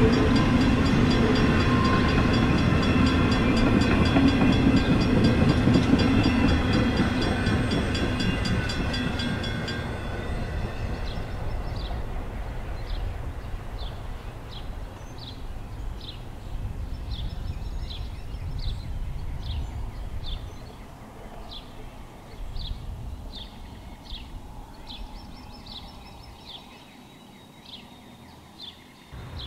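N scale model grain train rolling past, its hopper cars' wheels rumbling on the track with steady high tones over them. The sound fades after about ten seconds as the train moves off, leaving a faint bed with short high chirps about once a second.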